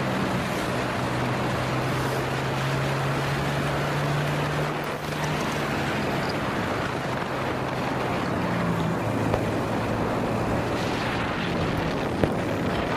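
Motorcycle engine running at cruising speed, heard from the rider's seat with wind rushing over the microphone. The engine note drops a little about five seconds in.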